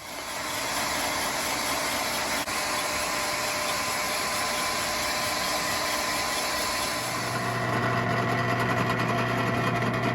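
Honda G' (AF23) scooter's small two-stroke engine starting and running. About seven seconds in it settles into a steadier, slightly louder hum.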